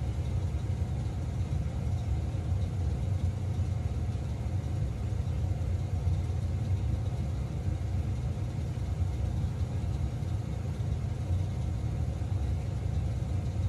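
Steady low rumble that stays even throughout, with no distinct sounds over it.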